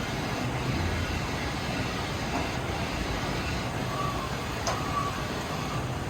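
Hardinge Bridgeport VMC 1000P3 CNC vertical machining center running, a steady mechanical noise with low hum. A few faint short tones and a light click come through it.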